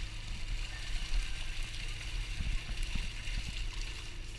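Water splashing and churning as a mass of horse mackerel thrashes at the surface inside a net being hauled in beside a boat. A steady low hum runs underneath.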